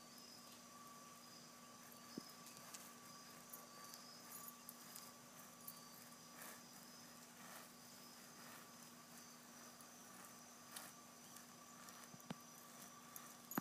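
Near silence: faint evening outdoor ambience with a steady high chirring of insects and a few faint scattered ticks.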